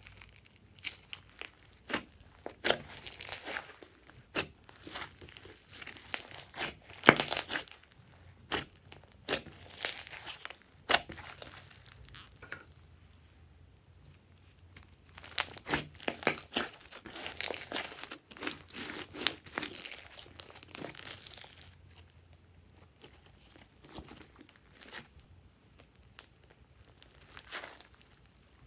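Glossy slime with foam beads being kneaded, folded and stretched by hand: sharp sticky pops and clicks mixed with crackling, squelching stretches. The busiest stretches come about a quarter of the way in and again just past the middle, and it grows softer toward the end.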